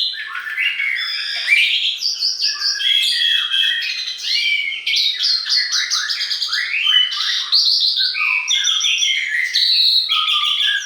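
Dense chorus of many songbirds chirping at once, a steady tangle of overlapping short chirps, trills and quick rising and falling whistles.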